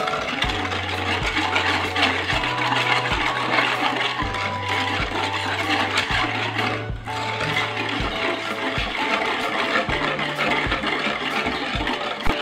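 Wire whisk swishing steadily through milk with cocoa, sugar and agar powder in an aluminium saucepan, over background music with held bass notes and a simple melody.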